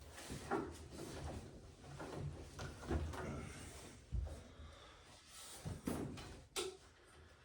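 Handling noises as a display panel and its locking strip are worked into place: scattered knocks and taps with rubbing and scraping between them.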